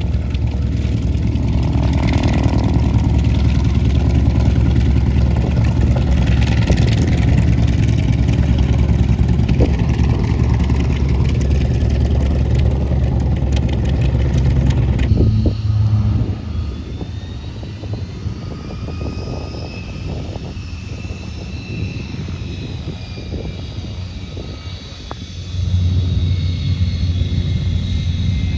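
Aircraft engines running close by. A loud, steady piston-style engine sound lasts about fifteen seconds and stops abruptly. A quieter stretch follows with a high whine gliding up and then down, and a louder low engine sound comes back near the end.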